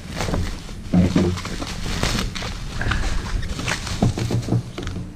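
Bubble wrap and plastic packaging crinkling and rustling as it is torn open and a boxed action camera is pulled out of it, with irregular crackles and handling bumps.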